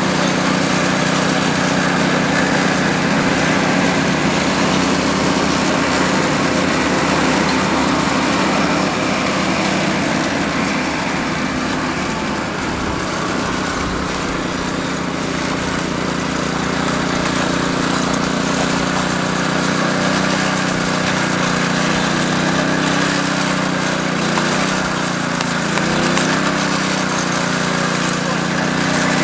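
The small petrol engine of a concrete power trowel running steadily under load as the machine smooths the slab, its pitch wavering slightly about three-quarters of the way through.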